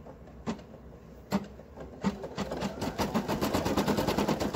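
Brother PE800 embroidery machine starting to stitch: a few single clicks, then a fast, even run of needle strokes from about two seconds in.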